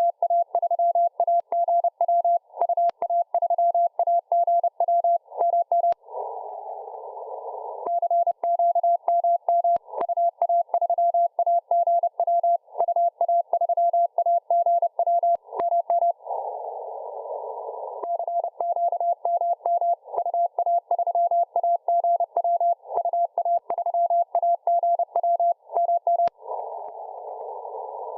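Morse code (CW) signal heard through a shortwave radio receiver: one steady mid-pitched tone keyed on and off in quick dots and dashes. Three times the keying stops for about two seconds and only band hiss through the receiver's narrow filter is heard.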